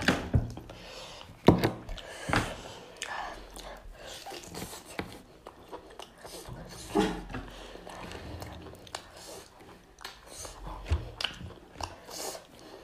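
Close-miked mukbang eating sounds: wet chewing, biting into chicken on the bone and lip smacks, with irregular clicks and a few louder smacks about a second and a half, two and a half and seven seconds in.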